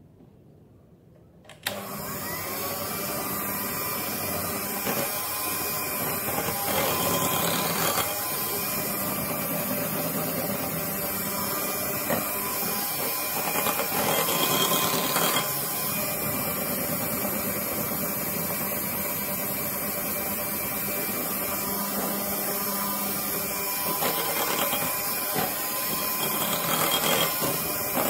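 Electric hand mixer starting suddenly about a second and a half in, then running steadily, its beaters whisking thick sponge-cake batter in a glass bowl.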